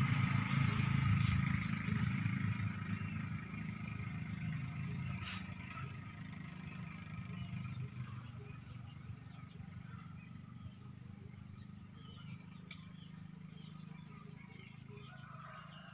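A vehicle engine's low rumble fading steadily away, with a couple of faint clicks.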